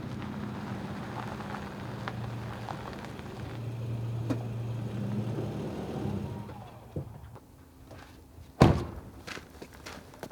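Pickup truck engine running with a steady low hum that dies away about seven seconds in. Near the end comes a single sharp, loud thud, like a vehicle door being shut, followed by a few light clicks.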